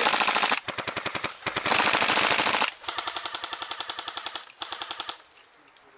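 Tokyo Marui AK74su airsoft electric gun firing full-auto bursts, a rapid even rattle of shots. Several loud bursts are followed by quieter rapid fire that stops about five seconds in.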